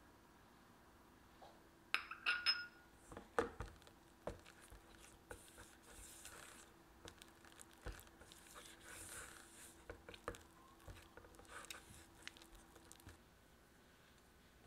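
Silicone spatula mixing softened butter in a stainless steel bowl: a few sharp ringing clinks and knocks against the bowl about two seconds in, then repeated soft scraping strokes as the butter is smeared around the bowl.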